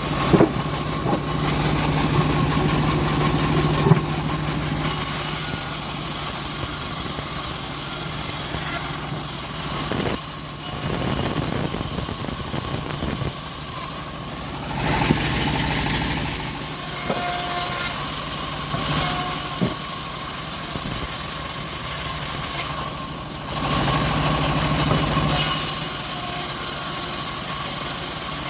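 Homemade bandsaw sawmill running steadily while sawing teak logs, its machine noise dipping briefly three times, with a couple of sharp knocks in the first few seconds.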